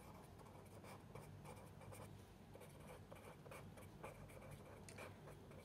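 Felt-tip marker writing on paper: a faint run of short pen strokes, one after another.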